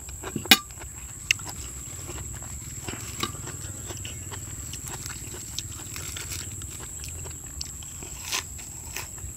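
Close-up eating sounds: a sharp clink about half a second in as a metal spoon is set down, fresh herbs being torn by hand, then biting and chewing near the end, over a steady high whine.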